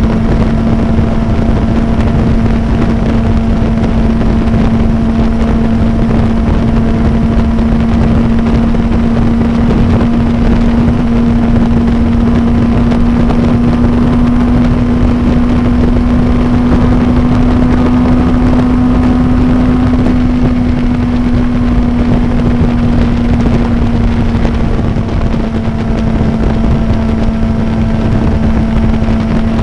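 Suzuki inline-four motorcycle engine running at a steady highway cruise. It holds one even tone that rises a little past the middle and eases back, under heavy wind rush.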